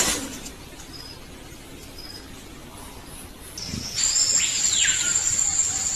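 The tail of a big cat's snarl right at the start, then faint background with a few short high chirps. Near the end, forest ambience comes in with a steady high-pitched drone and one falling whistle.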